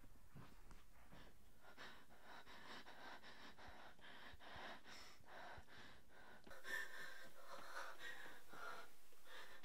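A woman breathing heavily, faint at first and louder from about two-thirds of the way in.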